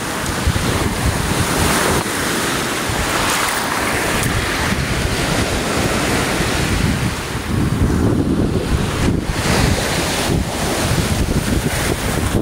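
Small lake waves washing in over sand and pebbles at the water's edge, a steady rushing surf, with wind buffeting the microphone.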